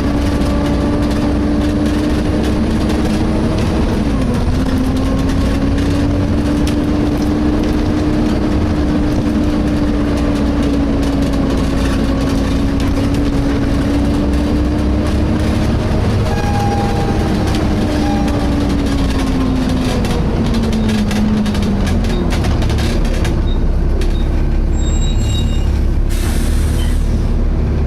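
Inside a Volvo B7TL double-decker bus on the move: steady engine and road noise with a sustained hoover-like whine from the engine cooling fan. The whine wavers in pitch, dips briefly about four seconds in, and glides down and fades just after twenty seconds in.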